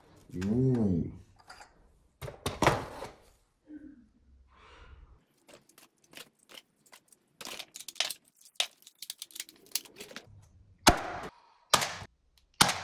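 Plastic toy guns being handled: scattered sharp clicks and knocks, with a quick run of clicking in the middle and a few louder knocks near the end.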